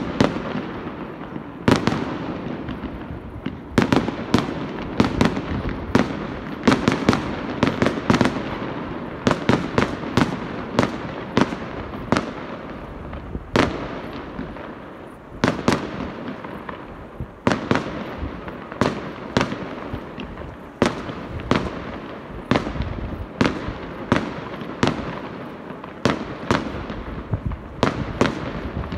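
Aerial fireworks display: a steady run of shell bursts, roughly one or two sharp bangs a second, each echoing away, over a continuous crackling rumble.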